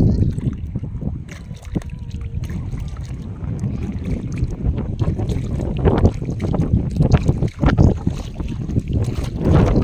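Wind buffeting the microphone, a loud irregular low rumble, with a few short sharper sounds about six to eight seconds in.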